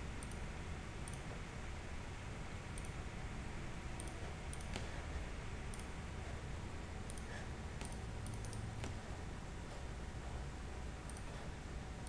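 Computer mouse clicking, faint and irregular, about a dozen clicks, over a low steady background hiss.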